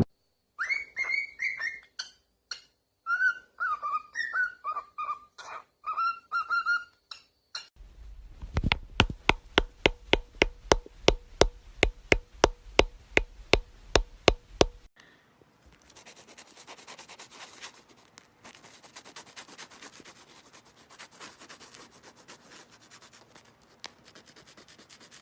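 Pet bird giving short chirping, whistled calls, followed by a run of sharp, evenly spaced taps at about two to three a second, then faint scratching.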